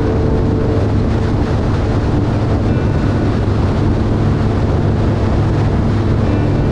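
Harley-Davidson V-twin motorcycle cruising at highway speed: a steady low engine drone mixed with wind rushing over the microphone.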